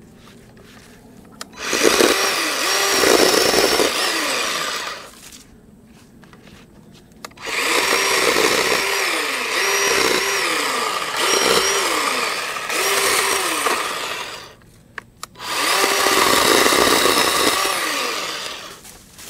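Greenworks 40V battery-powered electric chainsaw with a 12-inch bar cutting small limbs, in three runs of a few seconds each. Its motor whine dips in pitch and recovers again and again as the chain bites into each branch.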